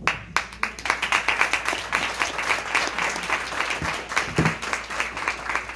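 Audience applauding: many hands clapping at once, starting suddenly and going on steadily.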